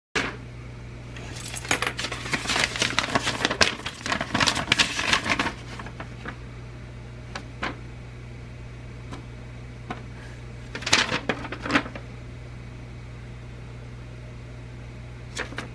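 Hard metal and plastic parts clattering and rattling as they are handled, a busy stretch of about four seconds, then a few scattered clicks and a short rattle later on.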